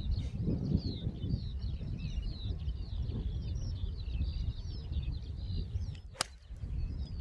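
A golf iron strikes a ball off the tee: one sharp crack about six seconds in. Behind it, wind rumbles on the microphone and birds sing with continuous quick chirps.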